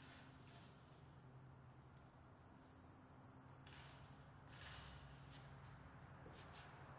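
Near silence: faint room tone with a steady low hum and a thin, steady high-pitched tone.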